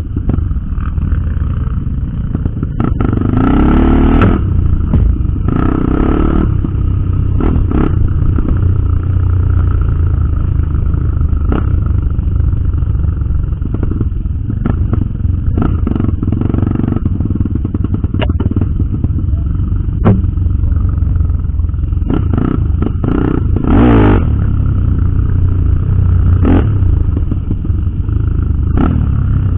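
Off-road trail motorcycle running over rough ground, with a heavy steady rumble of wind on the microphone and scattered knocks and clatter throughout.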